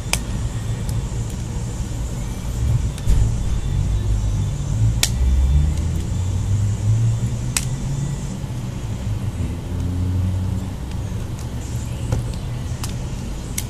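A few sharp plastic clicks, several seconds apart, as a pick is worked along the seam of an HTC Evo 4G's plastic back housing and its clips snap loose, over a steady low rumble.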